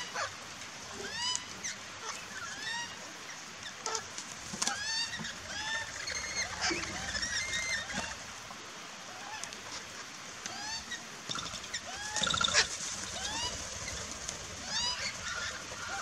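Several parrots calling over one another: a continuous run of short, shrill arched chirps and squawks, with one louder harsh screech about twelve seconds in.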